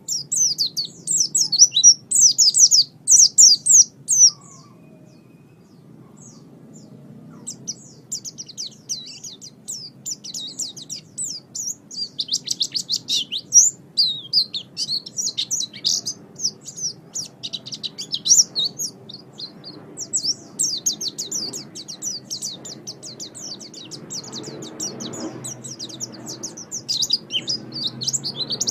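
Songbird chirping and twittering in fast, high-pitched bursts of rapid notes. The song breaks off for about three seconds some four seconds in, then resumes as near-continuous chattering.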